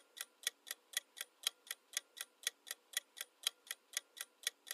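Clock ticking sound effect, steady at about four ticks a second, marking the countdown for answering a quiz question.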